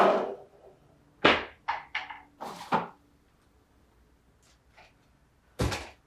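Thuds and knocks: one loud thud at the start, then five sharp knocks in quick succession over about a second and a half, and one more thud near the end.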